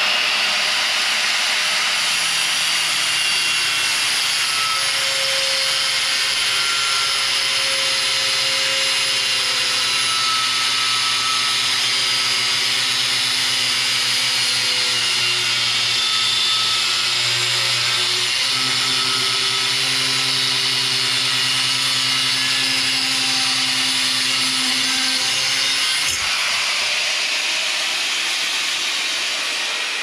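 Corded angle grinder with a thin cut-off wheel running and cutting through metal, a steady high grinding whine. The lower tones of the cut stop about 26 seconds in, and the sound fades near the end.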